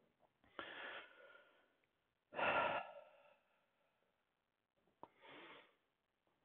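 A man's breaths, faint, in three short puffs, the middle one, about two and a half seconds in, the loudest, like a sigh. A small click just before the last one.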